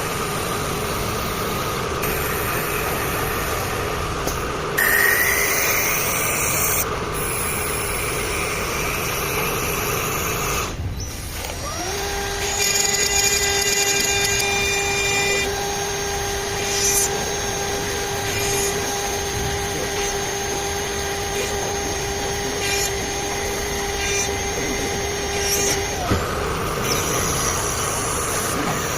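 Four-axis mill-turn CNC woodworking machine running and cutting wood, in several short edited takes. For a long stretch in the middle the spindle holds a steady whine under the cutting noise.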